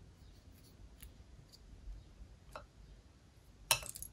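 Slime being worked by hand, giving a few faint scattered clicks, then a quick burst of sharp clicking near the end.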